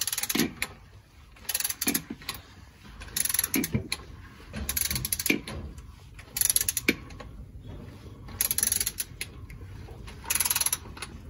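Socket ratchet snugging up transmission oil pan bolts: about seven short bursts of rapid ratcheting clicks, one every second and a half or so.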